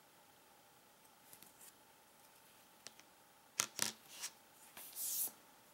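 Small LEGO plastic pieces being handled: a few faint ticks, then a cluster of sharp clicks and clatter a little past halfway, and a short scrape near the end.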